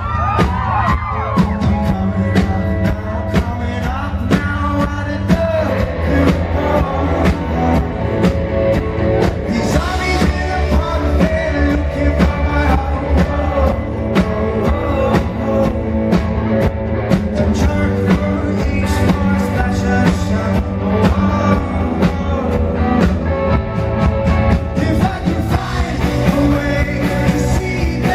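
Rock band playing live, loud and continuous: a steady drum-kit beat with electric guitars and bass under a male lead vocal.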